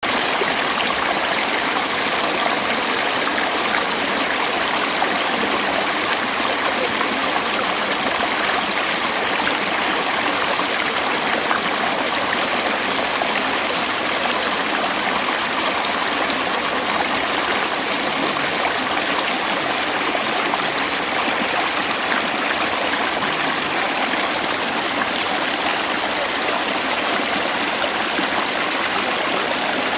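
Mountain stream rushing steadily over rocks: a continuous, even rush of water with no breaks.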